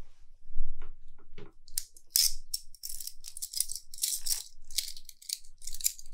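Steel handcuffs and their chain rattling and clinking in a quick run of jingling bursts as they are unlocked and pulled off a prisoner's wrists, starting about two seconds in. A dull thump about half a second in is the loudest sound.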